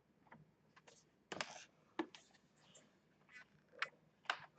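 Faint, scattered plastic clicks and scrapes of a guitar pick being worked into the seam of a laptop's plastic case to pry it open, the loudest about a second and a half in.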